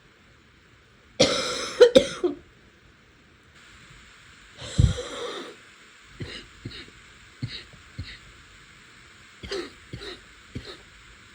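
A person with a sinus cough coughing repeatedly: a loud fit of several coughs about a second in, another hard cough about five seconds in, then a run of short, quieter coughs and throat clears.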